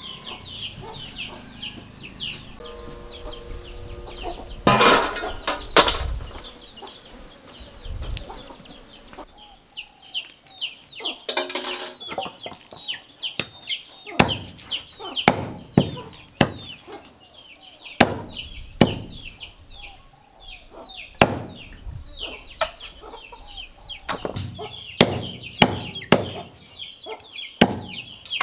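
Chickens clucking, with a steady flurry of high, short peeps. In the second half come sharp knocks, roughly one a second.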